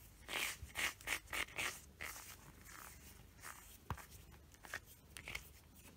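Cat fur being pulled off the rubber nubs of a grooming glove by hand: a quick run of five or six short scraping strokes in the first two seconds, then a few scattered ones.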